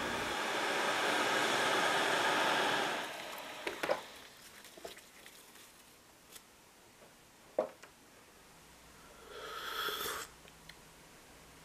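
Hot water from an electric kettle rushing for about three seconds, then a few light clicks and knocks of a ceramic mug and tea things. Near the end comes a short slurping sip of hot tea from the mug.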